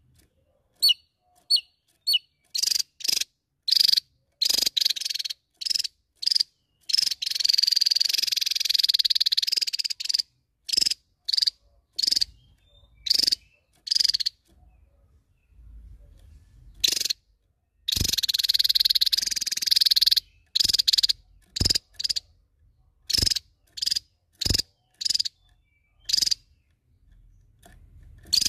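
Javan tesia singing: short, sharp, high-pitched notes in quick succession, broken twice by a long, rapid rolling trill lasting two to three seconds.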